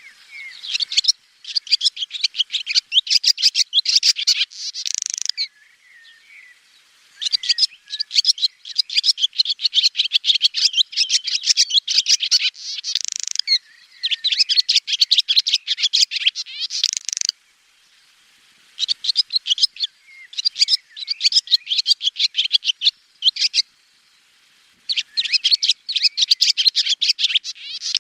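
Swallow twittering: rapid runs of high chirps and trills in phrases a few seconds long, broken by short pauses.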